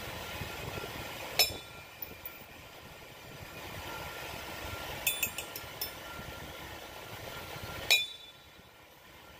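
A motor running steadily with a low hum, over which metal pieces clink sharply: once about a second and a half in, a quick run of four or five clinks around five seconds in, and one more near the end.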